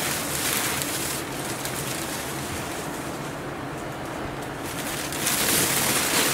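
Plastic air-cushion packing film rustling and crinkling as it is handled, louder near the end.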